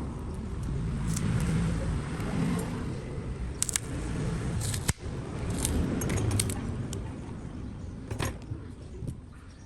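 Light clicks and metallic clinks of small repair tools and phone parts handled on a workbench, a dozen or so irregular taps, over a steady low background rumble.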